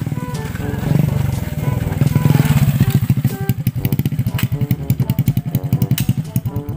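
Small motorcycle engine running as the bike rides up and stops, then idling with a fast, even putter that fades near the end. Background music plays throughout.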